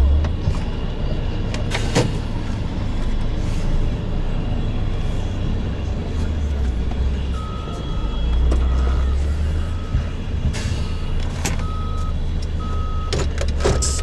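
Heavy diesel engines rumbling steadily, with a Caterpillar wheel loader's reversing alarm beeping about once a second from about seven seconds in as the loader backs up. A few sharp knocks come through near the end.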